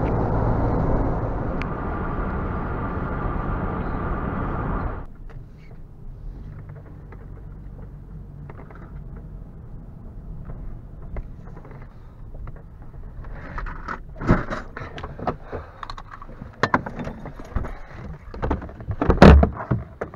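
Car driving along a road: steady, loud road and engine noise that cuts off suddenly about five seconds in. After it comes a much quieter low hum, then scattered sharp knocks and clicks that grow louder and busier toward the end.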